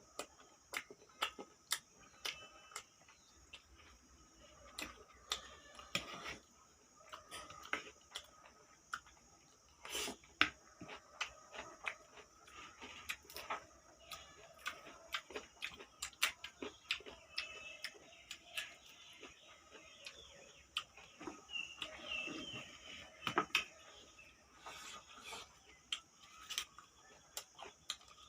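Close-miked chewing: irregular sharp clicks and smacks of a mouth eating, some seconds busier than others.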